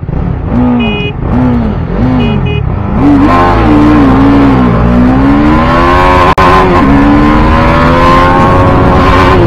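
Sport motorcycle's single-cylinder engine, a TVS Apache RR 310, being blipped at the start line while a few short horn beeps give the start countdown. About three seconds in it launches at full throttle, its pitch climbing and falling back at each upshift, with wind noise on the microphone.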